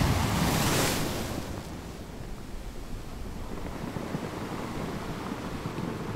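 Ocean waves washing: a wave swells and rushes in during the first second or so, then a steady wash of surf.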